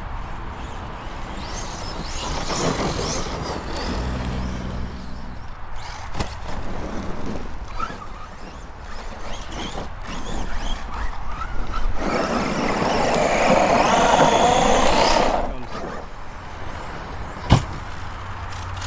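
Arrma Outcast 6S RC truck running on dirt: its electric motor and tyres rise and fall with the throttle, loudest for about three seconds past the middle. A single sharp knock comes near the end.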